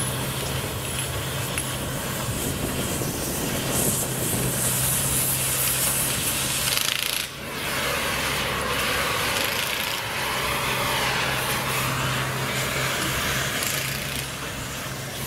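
Power rail saw cutting through a steel rail: a continuous grinding rasp over a steady engine hum. About seven seconds in it cuts out for a moment and comes back, then wavers up and down in pitch as the cut goes on.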